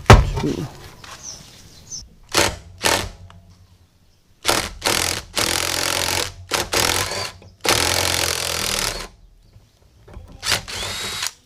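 A power tool runs in short bursts and longer runs, with abrupt breaks between them, as parts are taken off a Honda C70 motorcycle. A sharp knock at the very start is the loudest sound.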